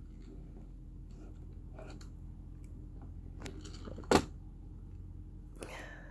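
Light taps and clicks of small toys and crayons being handled on a table, with one sharp knock about four seconds in and a brief high child's sound near the end, over a steady low room hum.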